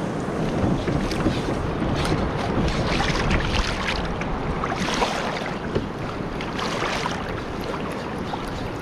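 Kayak moving quickly through sea water: water splashing and rushing along the hull in irregular bursts, with wind buffeting the microphone.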